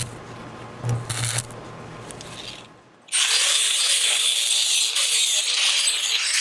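Short bursts of stick-welding arc crackle over a low electrical hum. After a brief drop about halfway through, an angle grinder takes over, grinding steel with a loud, steady, high-pitched hiss.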